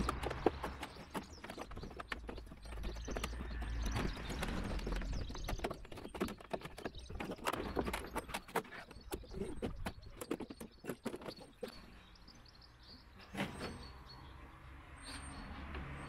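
Handling noises from working a door-handle release cable through the inside of a van's rear door: irregular clicks, light knocks and rubbing, busy for most of the time and thinning to a couple of single clicks near the end.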